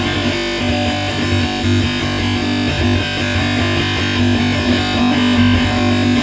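Computer crash sound effect: a dense, steady electronic drone of layered synthesized tones that flicker and stutter without pause.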